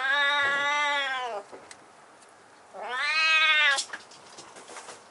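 Husky-voiced kitten meowing twice: a long drawn-out meow that rises and falls in pitch, then a shorter second meow about three seconds in, also rising and falling.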